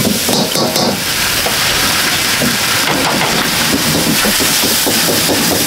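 Busy Chinese restaurant kitchen: a loud, steady hiss of food frying over high-heat burners.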